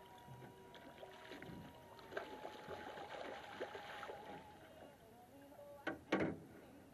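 Chinook salmon thrashing and splashing at the water's surface beside the boat as it is brought to the net. Two sharp knocks near the end, the second the loudest.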